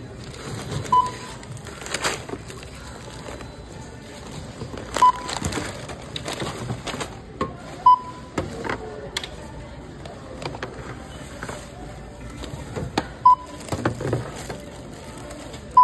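Checkout barcode scanner beeping as groceries are scanned: short single beeps of one pitch, about five, a few seconds apart, with items knocking on the steel counter in between.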